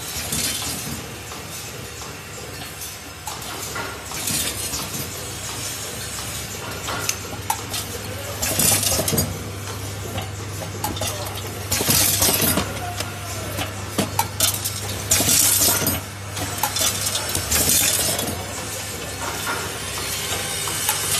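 Automatic counting and packing machine with three vibratory bowl feeders running: a steady low hum under a constant metallic clinking rattle of screws and plastic anchors. Louder, brighter rattling bursts come every three to four seconds.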